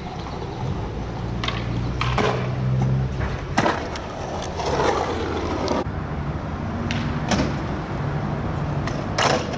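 Skateboard wheels rolling over street pavement with a steady rumble, broken by several sharp clacks at irregular intervals.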